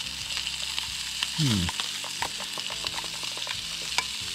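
Fish fillet frying in a pan, with a steady sizzle and frequent small crackling pops of spattering fat. About a second and a half in, a short voice-like sound falls in pitch.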